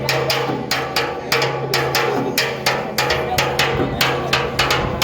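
Music with a quick, steady drum and percussion beat over sustained instrumental tones.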